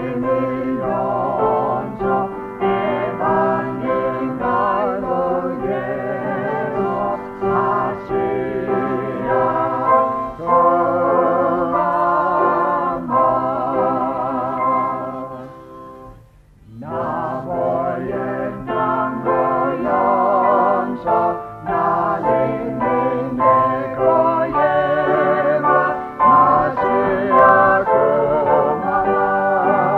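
Voices singing a hymn in Lingala, the held notes wavering with vibrato, with a brief break about halfway through before the singing resumes.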